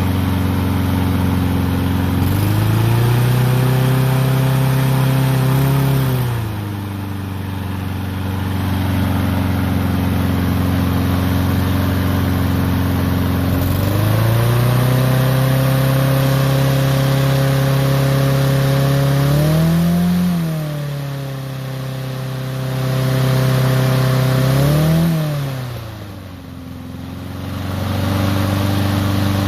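Honda small engine on a Troy-Bilt lawn mower running after a carburetor cleaning, its speed going up and coming back down several times: a few seconds at higher speed early, a longer high stretch in the middle, two short blips, then settling to a steady lower speed near the end. The engine speed is being adjusted because it was running too fast.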